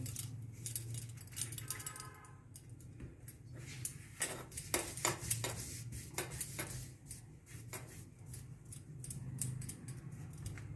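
Scattered light clicks and taps from hands smoothing dough balls between the palms and moving on a stone counter, over a steady low hum.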